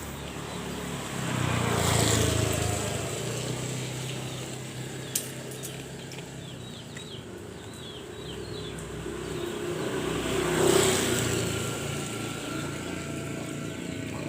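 Two motor vehicles passing along the road, each swelling up and fading away, the first about two seconds in and the second near eleven seconds, with a single sharp click about five seconds in.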